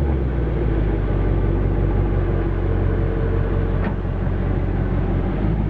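Spyker C8 Aileron's V8 idling steadily after a start-up, a low, even exhaust note.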